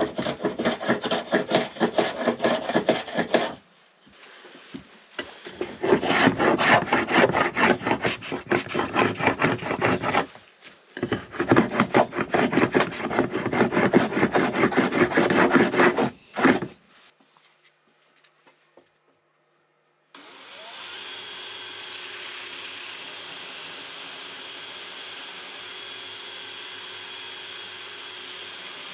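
Hand blade shaving a wooden wand blank in fast scraping strokes, in three runs with short pauses. After a few seconds' quiet, a cordless drill, used as a makeshift lathe to spin the wand, starts and runs steadily with a constant high whine.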